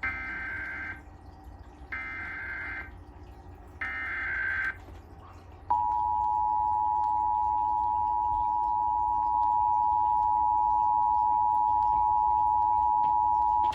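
Emergency Alert System tones: three short bursts of the digital SAME header data, each about a second long, then the steady two-tone EAS attention signal that runs on, announcing a Required Monthly Test.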